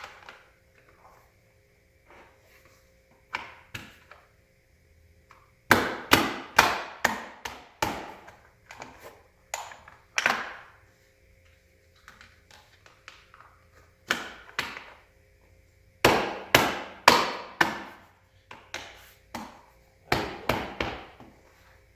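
Plastic side covers being knocked into place on an office chair: sharp knocks in several quick runs of a few strikes each, with pauses between.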